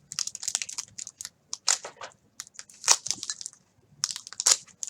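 A baseball card pack being opened and its cards handled: the wrapper crinkling and cards rustling in a run of short, irregular crackles and clicks, sharpest about three seconds in and again near the end.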